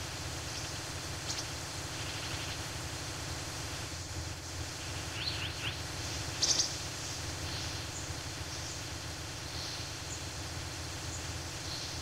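Forest ambience: a steady background hiss with scattered short, high bird chirps. The loudest chirp comes a little past halfway.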